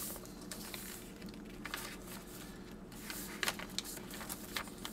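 Pages of a chunky handmade junk journal being turned and smoothed by hand: irregular soft rustles and small ticks of heavy paper and cardstock, with a faint steady hum beneath.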